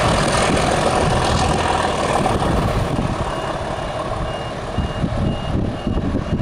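Two British Rail Class 37 diesel locomotives, with English Electric V12 engines, running light engine and working hard. Their heavy engine thrash fades as they pull away. From about three seconds in, a high electronic beep repeats about twice a second.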